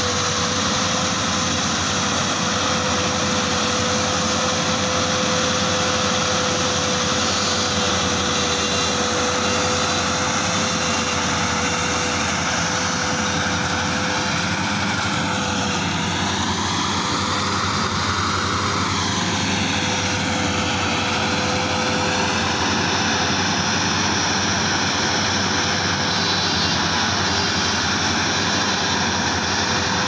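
Bimo 110 rice combine harvester running steadily under load as it cuts and threshes lodged rice, a steady tone riding over the engine and machinery noise. Around the middle the pitch of the upper part of the sound rises and then falls back.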